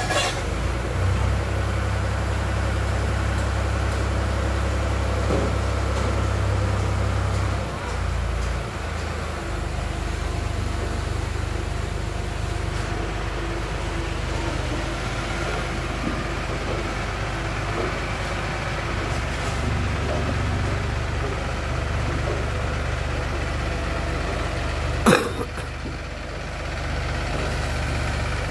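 Mobile crane's diesel engine running steadily with a deep hum, dipping briefly about eight seconds in. A single sharp knock near the end is the loudest sound.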